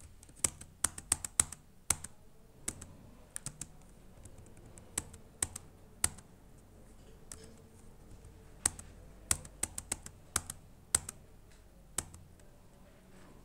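Computer keyboard typing: single keystrokes and short quick runs of clicks with pauses between them.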